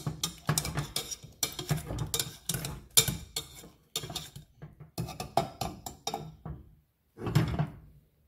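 A metal masher pressing down repeatedly into a stainless steel saucepan of simmering peaches and berries, clanking against the pan with each stroke, about two strokes a second. The strokes stop shortly before the end, and one last clatter follows.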